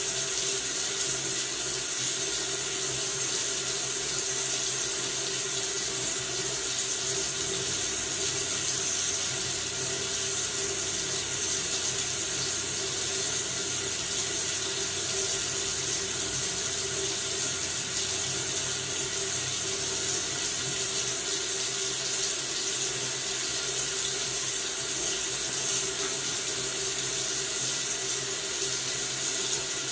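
Household faucet running steadily into a sink, an even rushing hiss of water with no change.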